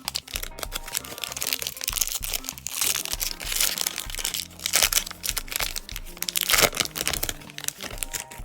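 A plastic-foil trading card pack wrapper being torn open and crinkled by hand, in irregular bursts of crackling, over background music.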